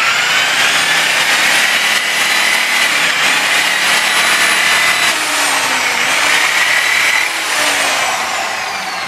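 Electric rotary polisher with a buffing pad running against a metal sill trim strip, polishing it after wet sanding. It gives a loud, steady high whine that dips in pitch briefly twice, then winds down near the end.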